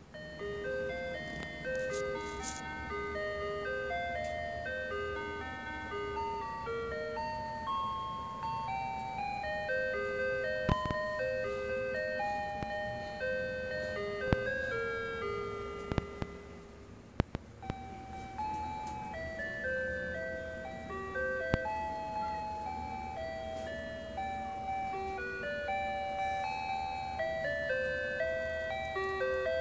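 Telco Motionette animated Christmas figures playing a simple chime-like electronic melody, one clean note after another, through the toy's small built-in speaker. The tune breaks off briefly about halfway, and a few sharp clicks sound over it.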